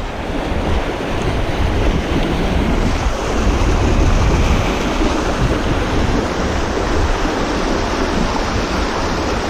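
Steady rush of river rapids pouring over rocks, with wind buffeting the microphone.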